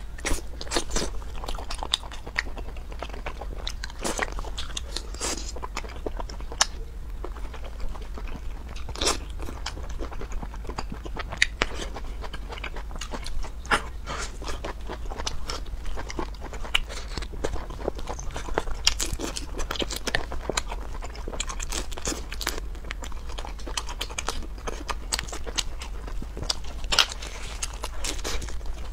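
Close-miked eating: a person biting, crunching and chewing food, with many sharp, irregular crunches and mouth clicks.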